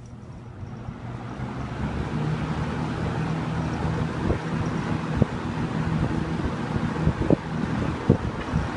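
1980 Kmart (Lakewood) K-223 20-inch box fan with its McMillan motor and plastic blades, running on high: it comes up to speed over the first couple of seconds, then gives a steady rush of air over a low motor hum. A few faint knocks sound in the second half.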